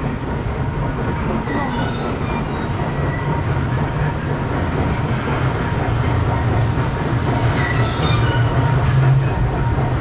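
Intamin river rapids ride: a steady low mechanical rumble mixed with rushing water as the round raft moves along, growing louder toward the end.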